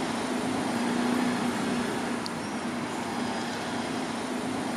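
Steady road traffic noise with a low hum running through it.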